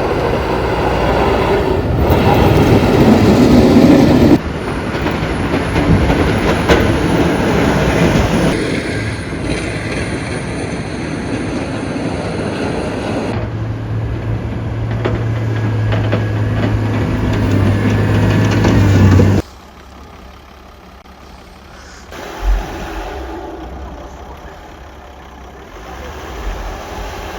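Street noise from a series of clips that cut abruptly from one to the next, mostly vehicle traffic and engine rumble. In the middle stretch an engine runs with a steady low hum, and a quieter clip near the end holds a single thump.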